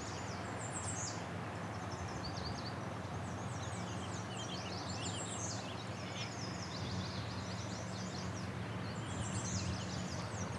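Songbirds singing: bursts of quick, high chirping trills that come again every few seconds, over a steady low hum.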